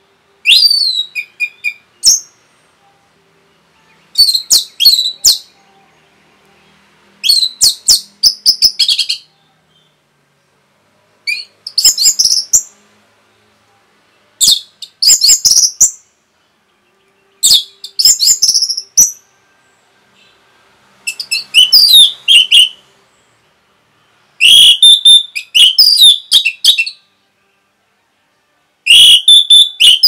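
Orange-headed thrush singing: about nine short phrases of rapid, high whistled notes, one every three seconds or so, with brief silences between.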